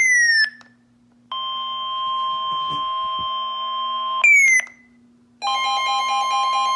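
Emergency Alert System alert tones before a severe thunderstorm warning: a short falling electronic sweep, a steady chord of tones for about three seconds, another short falling sweep, then after a brief gap a steady alarm tone with a pulsing lower tone starting near the end.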